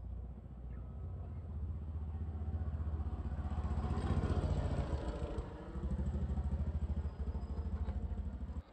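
An engine running steadily with a low, fast pulse, growing louder around the middle and cutting off suddenly near the end.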